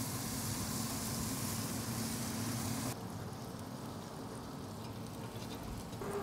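Smashed beef burger patties sizzling on a cast iron griddle: a steady hiss with a faint low hum. About three seconds in, the sound drops abruptly to a quieter hiss with faint crackles.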